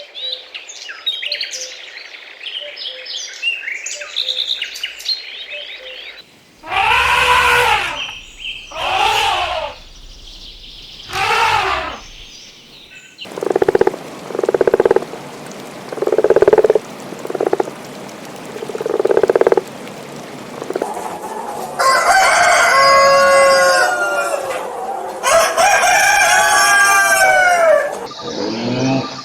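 Chickens: light chirping at first, then a rooster crowing three times, a run of short clucks, and two more long crowing calls near the end.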